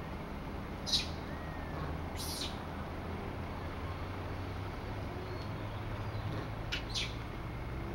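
Idling motorbike engine giving a steady low hum. Short high-pitched chirps sound three times over it: about a second in, just after two seconds, and as a quick double near the end.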